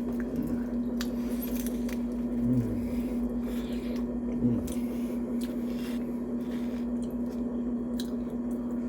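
Wet, squishy chewing of mini tacos with cheese sauce, close to the microphone, with scattered short clicks and two brief low murmurs, over a steady hum.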